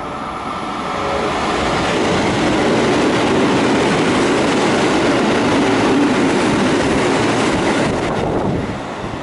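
JR West 281 series Haruka limited express, a six-car electric train, running through the station at speed without stopping. Its wheel-and-rail and motor noise swells about a second in, stays loud for several seconds, then eases off near the end as the train draws away.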